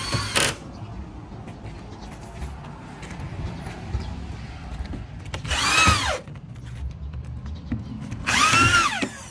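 Corded electric hand drill run in three short bursts, at the start, about five and a half seconds in, and near the end. Each time its motor whine rises and falls as the trigger is pulled and let go while it drills small holes in the table's edging.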